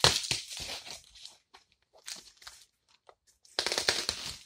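Packing material being torn and crinkled by hand as a boxed figure is unwrapped: a burst of rustling at the start, faint scattered crackles, then a louder tearing rustle about three and a half seconds in.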